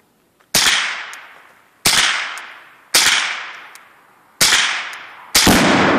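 Five rifle shots, roughly one every second, each cracking sharply and trailing off in a long echo. The fifth, near the end, is heavier with a deeper boom that rings on longer: the Tannerite target detonating.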